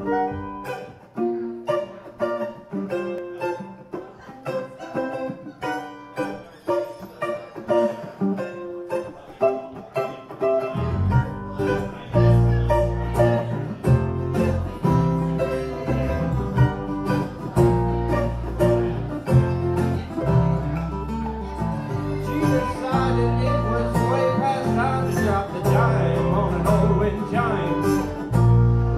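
A small acoustic string band playing live: an intro of plucked strings picking out separate notes, with bass notes coming in about eleven seconds in and the band playing on together.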